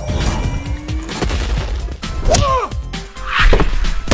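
Background music with added impact sound effects: a run of thuds and crashes, a bending whine about two seconds in, and a loud hissing rush a little after three seconds.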